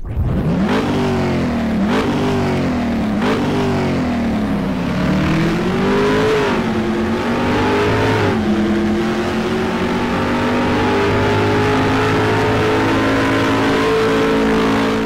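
Car engine revved three times in quick succession, each rev rising and falling back, then pulling up more slowly, dropping in pitch at a gear change about eight seconds in, and climbing steadily after it.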